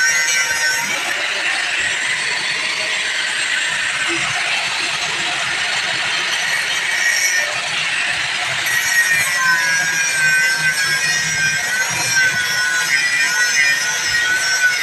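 Handheld electric angle grinder with a thin abrasive cut-off disc cutting through a metal rod: a steady whine over harsh grinding noise.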